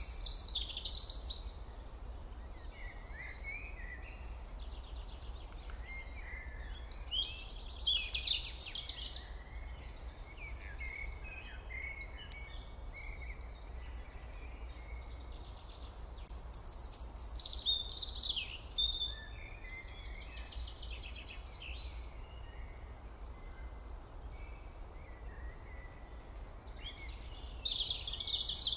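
Birdsong ambience: clusters of short chirps and trills that swell every several seconds, over a steady low hum.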